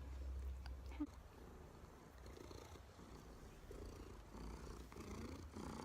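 Domestic cat purring softly, with a small click about a second in.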